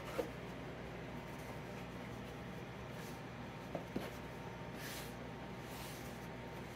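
Stainless steel bench scraper cutting through soft bread dough onto a wooden board: a soft knock just after the start, two more about four seconds in, and a few brief light scrapes, over a quiet room hum.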